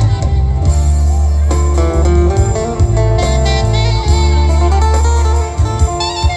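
Loud amplified song music from a stage sound system, in an instrumental passage with a heavy, steady bass line. It drops a little quieter about five and a half seconds in.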